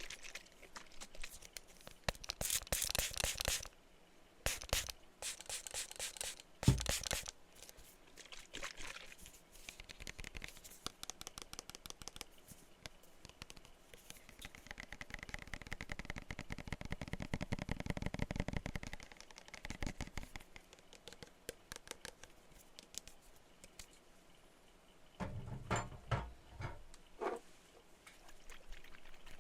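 Tapping and scratching on glass perfume bottles: scattered quick taps, a scratchy stretch a few seconds in, a long run of rapid, even ticking scratches in the middle, and a few duller knocks near the end.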